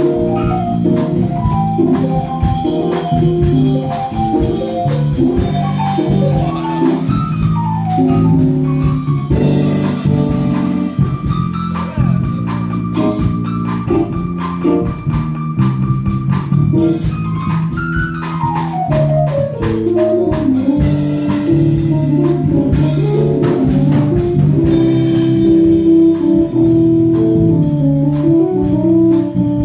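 Jazz combo playing, led by an organ-toned solo on a Roland stage keyboard over bass and drums. About a third of the way in the keyboard holds one long high note, then slides down in a quick falling run.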